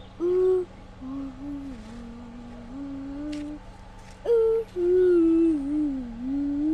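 A person humming a wandering tune without words: long held notes that slide up and down, in two phrases with a short break about four seconds in.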